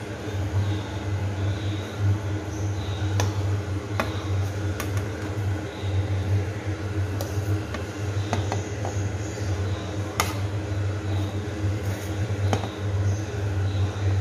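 Steady low hum, like an electric motor or mains hum, with several light, sharp clicks scattered through it.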